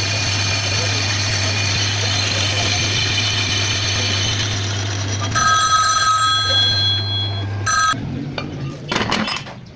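Lathe motor running with a steady hum while high, clean ringing tones sound over it, loudest for the last couple of seconds before the machine stops about eight seconds in. Irregular knocks and clattering follow as it winds down.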